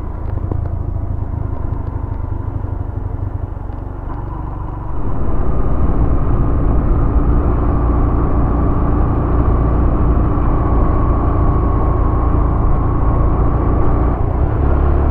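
Yamaha YBR 125G motorcycle's single-cylinder engine running while riding, a steady drone that gets louder about five seconds in as it pulls away and holds its speed.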